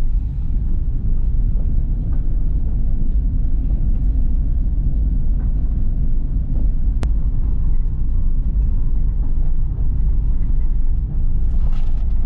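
Car heading down a steep dirt road, heard from inside the cabin: a steady low rumble of engine and tyres on the rough surface, with a single sharp click about seven seconds in.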